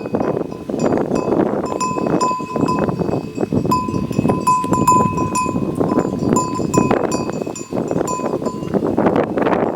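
Bells worn by grazing water buffalo clinking irregularly many times as the animals move, over a dense steady rustling noise.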